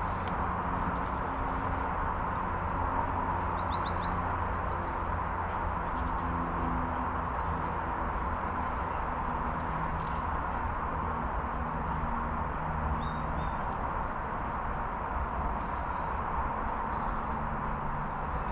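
Small birds chirping now and then, short high calls scattered through a steady outdoor hiss.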